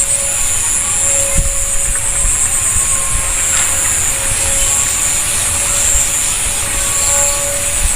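Distant steady droning hum of unknown source, likened to a vacuum cleaner or to plywood being planed. A high, fast-pulsing shrill runs over it, and wind buffets the phone's microphone.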